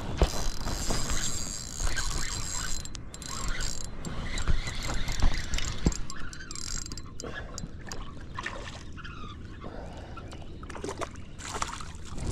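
Water splashing and sloshing around a fishing kayak, with scattered knocks and clicks from handling on board.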